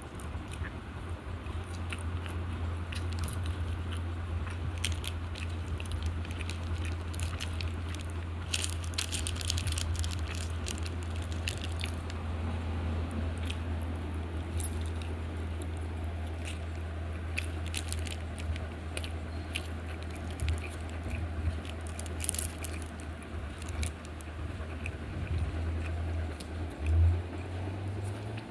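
A person chewing and biting into fast food close to the microphone, with crisp crunches now and then, over a steady low hum.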